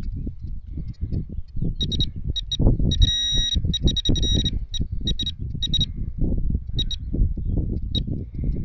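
A metal detector giving short, high electronic beeps at irregular intervals, with one longer tone about three seconds in, as it is passed over freshly dug soil while homing in on a very small metal target. Under it, the scraping and crumbling of loose earth being dug through and sifted by hand.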